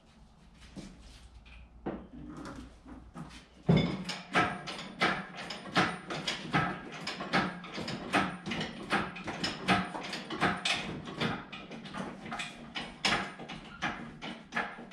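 Metal clanks and knocks from lifting a Chevrolet LS V8 engine out of a Corvette's engine bay with a shop engine hoist and chain. After a quiet start, a rapid, irregular run of clicks and knocks, several a second, begins about four seconds in.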